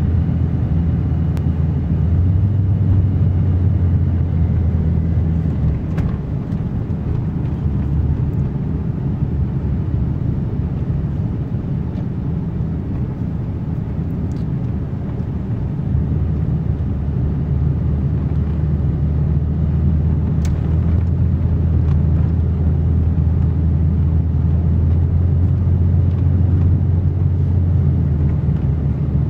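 Ford F-350 pickup truck driving in four-wheel drive, a steady low engine and road rumble with a few faint clicks.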